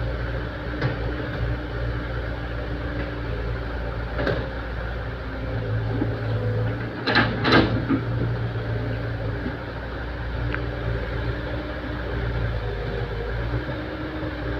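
Excavator's diesel engine running steadily, with a few short knocks and two loud clanks close together about seven seconds in.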